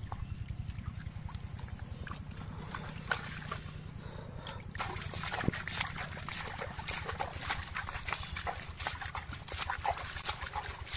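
Hands churning and scooping thick mud and muddy water in a dug hole: wet sloshing and squelching, much busier from about five seconds in, over a steady low hum.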